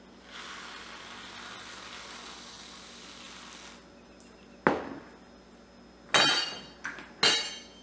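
Aerosol can of whipped cream spraying with a steady hiss for about three seconds as cream is piped onto a drink. Then three sharp knocks and clinks, the last two ringing briefly, as the can is handled and set down on the counter.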